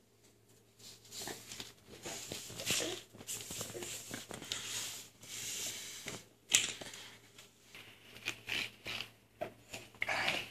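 Baby shuffling on an interlocking foam floor mat and pushing a small toy about: irregular rustling and scraping, with a sharp tap about six and a half seconds in.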